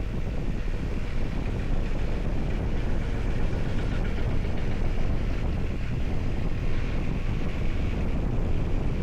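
Steady wind rush on the microphone with the road noise of a moving vehicle.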